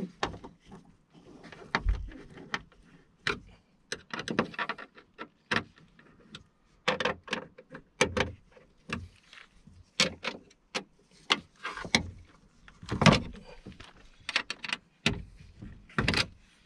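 Irregular clicks, taps and knocks of a hand tool on the metal inner door panel as the T27 Torx screws holding the electric window motor are tightened.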